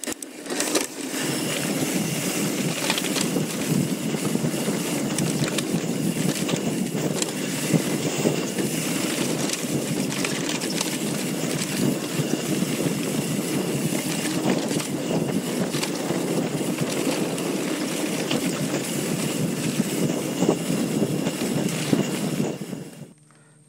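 Wind and trail noise from a mountain bike ride: a steady rushing with scattered rattles and knocks, cutting off abruptly near the end.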